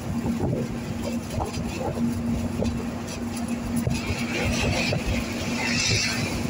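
An open-sided vehicle driving at steady speed: engine drone with wind and road rumble. About four seconds in, a rush of hiss builds as a truck passes close by the other way.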